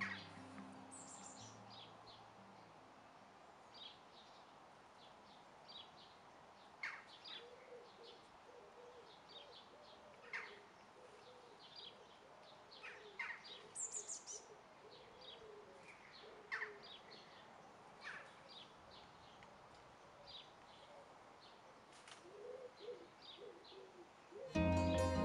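Faint outdoor birdsong: scattered short, high chirps and calls from several birds. A low, wavering call repeats through the middle and again near the end.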